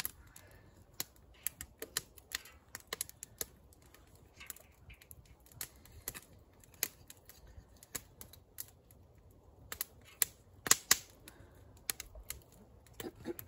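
Small split-kindling wood fire crackling, with irregular sharp clicks and pops a few times a second; two louder pops come close together about eleven seconds in.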